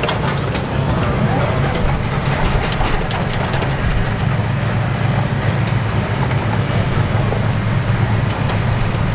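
Steady low engine-like hum with faint voices in the background.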